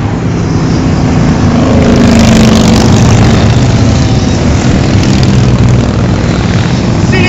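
A group of motorcycles riding past close by on the road, their engines running loud and steady, with one engine note swelling as a bike goes by.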